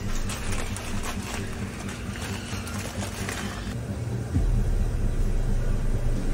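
A steady low hum with light rustling and crackling; about four seconds in, a louder low rumble sets in.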